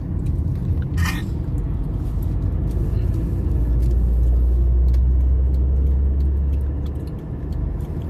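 Road noise heard from inside a car cruising on a motorway: a steady low rumble of tyres and engine, with a deeper drone that swells for a few seconds in the middle.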